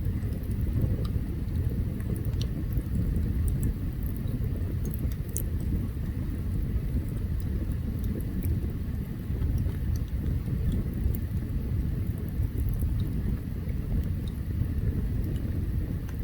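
Open campfire burning: a steady low rumble with scattered faint crackles and pops.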